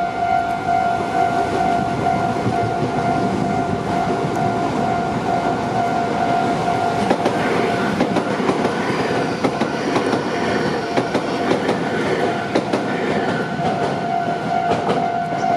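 Japanese level-crossing alarm ringing steadily in its electronic 'kan-kan' tone while a Meitetsu Seto Line electric train passes over the crossing, its running noise loud throughout and its wheels clicking over rail joints, most thickly in the middle.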